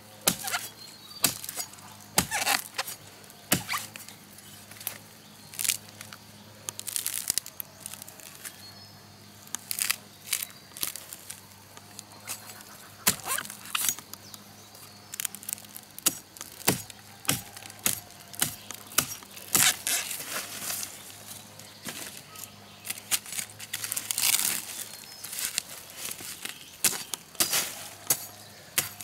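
Repeated sharp chopping strikes at an irregular pace, a blade cutting into palm tubers, with short pauses between runs of blows.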